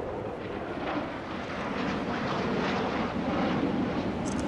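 Jet engine noise of a Thunderbirds F-16 Fighting Falcon flying past, a steady rushing noise that grows somewhat louder through the middle.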